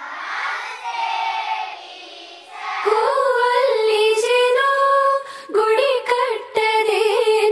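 Children singing together without words, the voices blended into a hazy chorus; about three seconds in, a single clear voice takes over, singing a melody in long held notes.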